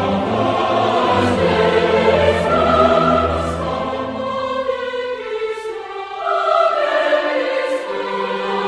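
Background music: orchestral, with a choir singing sustained notes. The low bass drops out about halfway through.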